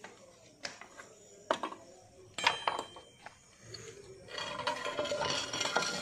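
Clay roof tiles clinking and knocking as they are lifted and shifted by hand: a few separate sharp clinks, some ringing briefly, then a denser run of rattling and scraping tiles from about two-thirds of the way through.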